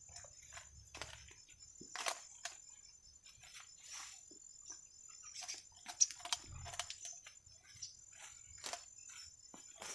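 Leaves and stems rustling and snapping irregularly as weeds are pulled and handled by hand among garden plants, over a steady high insect buzz.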